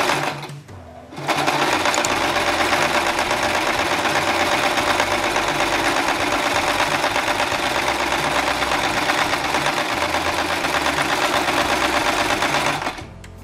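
Sewing machine running at a steady speed, stitching a straight line to couch thick wool yarn onto fabric in an embroidery hoop. It stops briefly right at the start, runs again from about a second in, and stops shortly before the end.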